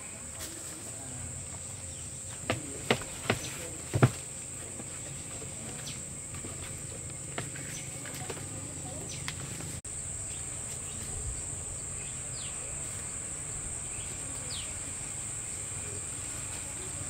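Insects droning steadily on one high pitch, with four sharp knocks between about two and four seconds in.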